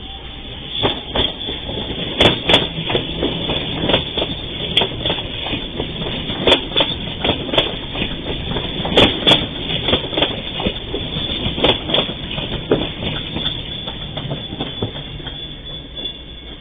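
CNR 3000-series electric passenger train passing over a level crossing, its wheels clattering with irregular sharp knocks over the rail joints and crossing. The clatter fades near the end as the train clears.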